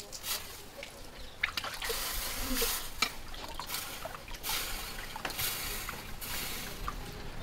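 Water splashing and trickling in a quench trough as an axe head is rinsed by hand, with a few sharp clicks among the splashes.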